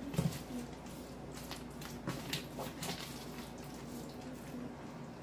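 Wooden spoon stirring chicken pieces in a thick yogurt marinade in a plastic container: soft wet squelching with irregular light scrapes and taps of the spoon against the plastic.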